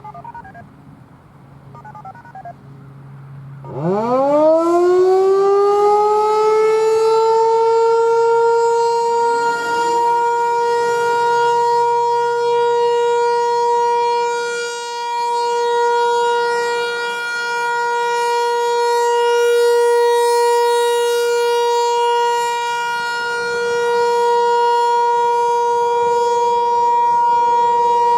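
Federal Signal 508 outdoor warning siren winding up about four seconds in: its pitch climbs quickly, then holds one loud steady tone with strong overtones. This is the steady alert signal of the siren test.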